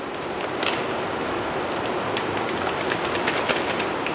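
Coconut milk powder poured from a plastic packet into a ceramic bowl: a steady hiss with many small crackles of the crinkling packet.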